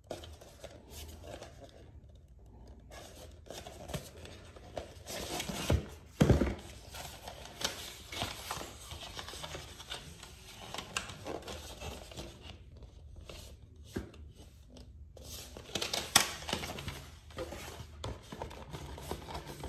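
A DVD box set's cardboard slipcase and disc packs being slid out and handled: scraping, sliding and rustling of card and plastic, with a few louder knocks about six seconds in and again near sixteen seconds.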